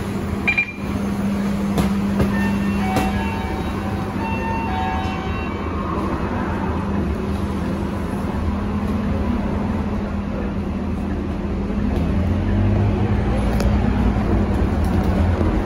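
Cabin sound of a Scania K230UB city bus, its nine-litre five-cylinder diesel running with a steady low hum. Several short electronic beeps sound in the first few seconds. About twelve seconds in the engine pulls harder and gets louder as the bus moves off.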